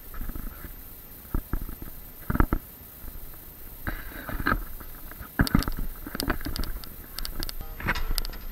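Handling noise on a camera held on a selfie stick: low rumbling and irregular knocks and rubbing as the stick is gripped and the camera is swung about. The busiest part comes in the second half, when the camera brushes against clothing.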